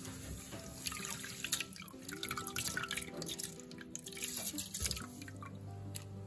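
Rice being washed by hand in a rice cooker's inner pot: water sloshing and dripping as the grains are swished and scooped up, in many short splashes that stop about five seconds in. Background music runs underneath.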